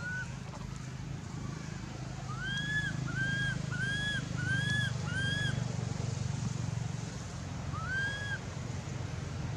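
Infant long-tailed macaque crying: a run of five short, arched, high-pitched calls about two seconds in, then one more near the end, over a steady low hum.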